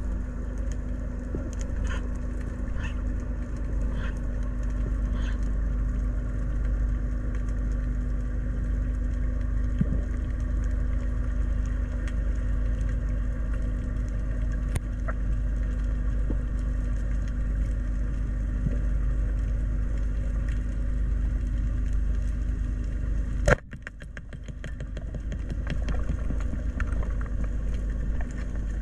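Steady low underwater rumble with a constant hum, picked up by a camera under water, with a few faint clicks. One sharp click comes about 23 seconds in, and the rumble drops for a moment after it, then builds back up.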